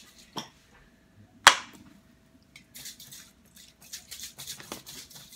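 An aerosol can of cooking spray being handled over a silicone baking pan: a sharp click near the start, a loud sharp knock about a second and a half in, then a run of short, hissy bursts.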